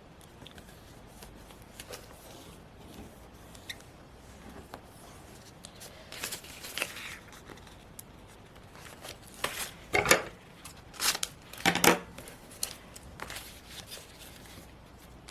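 Paper and stationery being handled at a desk for journal collage: scattered light rustles and clicks, with a few louder sharp strokes about six seconds in and a cluster of them about ten to twelve seconds in.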